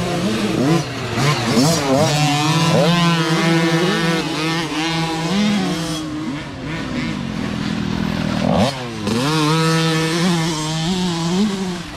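Several small pee-wee dirt bike engines revving as the bikes ride past one after another, their pitch climbing and dropping again and again with throttle and gear changes. One bike passes close about nine seconds in, with a quick swoop in pitch.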